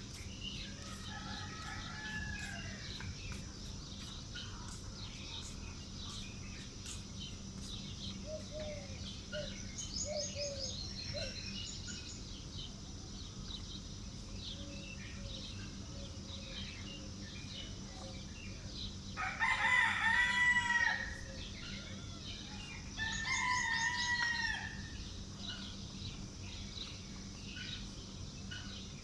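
A rooster crowing twice, the crows about three seconds apart and well into the stretch, over quieter clucking and small birds chirping.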